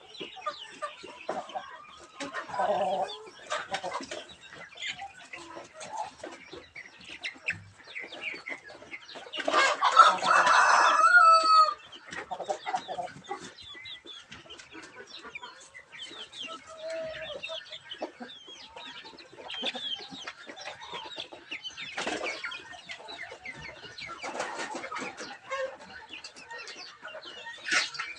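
A flock of young chickens clucking and calling continuously in many short notes. About ten seconds in, a rooster crows once, loud and drawn out for about two seconds.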